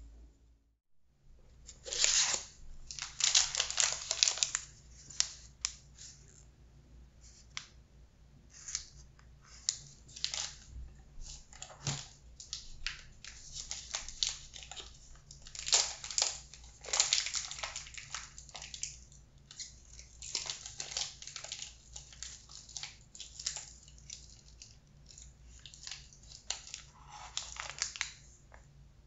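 Plastic snack bag of candied hawthorn strips crinkling and rustling in irregular bursts as it is handled, loudest about two seconds in and again around the middle.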